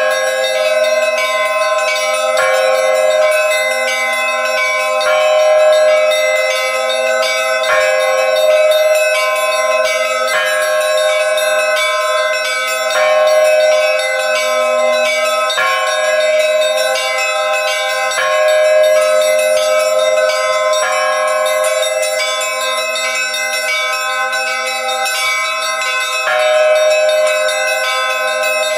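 Bells ringing continuously, with a new strike about every two and a half seconds and each ring carrying on into the next.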